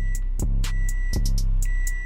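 Background music with a steady beat: a heavy bass kick about every three quarters of a second, ticking high percussion and a held high note.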